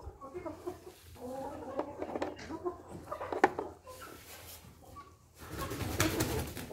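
Chickens clucking in short calls, with sharp clicks and a louder rustling stretch near the end as eggs are handled in a straw-filled nest box.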